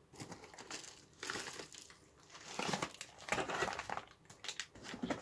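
Plastic packaging crinkling and rustling as it is handled and opened, in several uneven spells.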